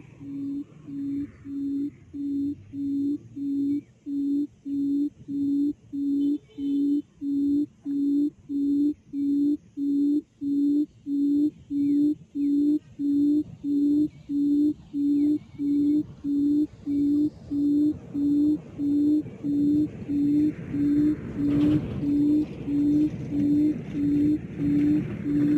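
Recorded quail call played through a loudspeaker as a trapping lure: one low hooting note repeated about one and a half times a second, evenly and without pause. Background hiss rises in the last few seconds.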